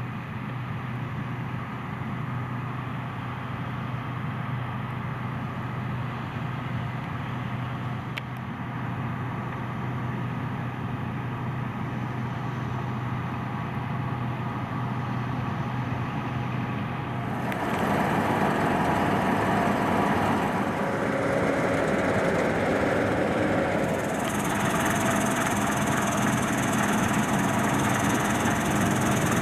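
Combine harvester running steadily with a low engine hum and machinery clatter. About two-thirds of the way through, the sound becomes suddenly louder and harsher as the machine comes closer, and it changes character again a few seconds later.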